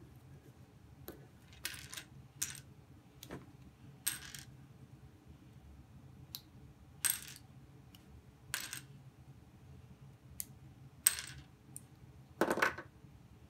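LEGO pieces clicking and clattering as a model is taken apart: a dozen or so sharp plastic clicks and short rattles at uneven gaps, the loudest clatter near the end.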